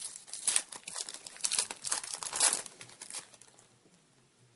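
Foil wrapper of a Topps Chrome trading-card pack crinkling and tearing as it is opened and handled, a string of short rustling bursts over about three seconds.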